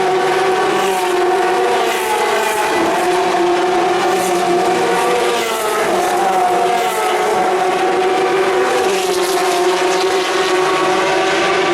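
Race car engines at speed on a circuit, several running at once, their pitches overlapping and rising and falling as the cars pass.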